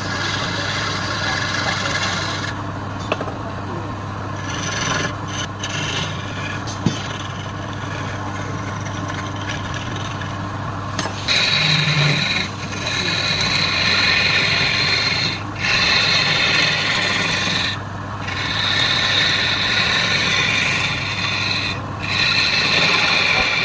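Wood lathe running with a steady hum while a tool scrapes against the spinning wood. About halfway through the scraping turns louder and higher, in long strokes broken by short pauses.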